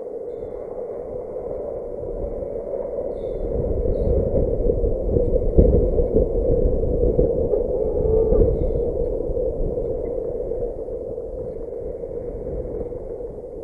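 Wind buffeting the nest camera's microphone, a steady rush that swells louder in the middle and eases toward the end.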